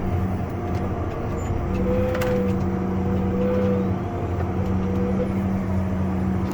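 Tractor engine running steadily under light load, a constant drone with a humming tone that wavers slightly, as it pulls a bale stacker wagon across the hayfield.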